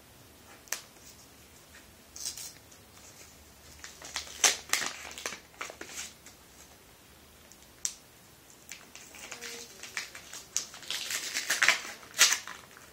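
Paper envelope being torn open by a small child's hands: irregular rips and paper rustling in short bursts, busiest and loudest in the last couple of seconds.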